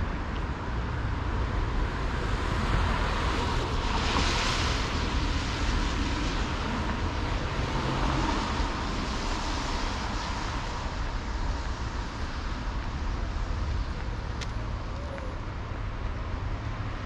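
City street ambience: a steady hum of distant road traffic, with a vehicle passing more loudly about four seconds in.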